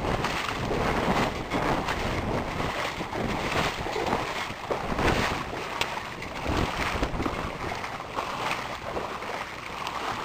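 Gusty wind buffeting the camera microphone, a rough, uneven rush that swells and drops from moment to moment.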